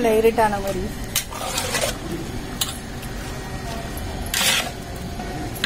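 A metal ladle stirring wet marinated chicken in a large metal pot. It makes several separate scrapes and clinks against the pot, and the loudest scrape comes near the end.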